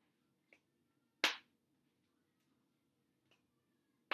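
Letter tiles clicking onto a magnetic whiteboard as they are set in place to spell a word. There is one sharp click just over a second in and a few fainter ticks around it.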